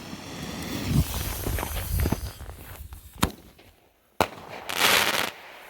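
Single-shot consumer firework mortars going off: a hissing launch dotted with crackles and pops, a sharp bang a bit past three seconds, then another short burst of hiss near the end.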